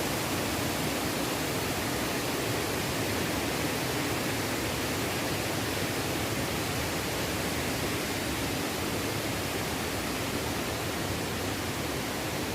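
Mountain stream water rushing over rocks: a steady, even rushing noise.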